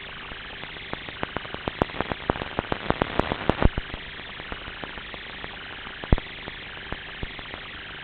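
Steady rushing noise with a quick run of sharp clicks and knocks from about one to four seconds in, and one louder knock about six seconds in.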